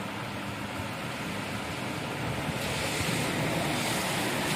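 Steady rushing background noise, like wind on the microphone or a fan, which gets louder and hissier about halfway through.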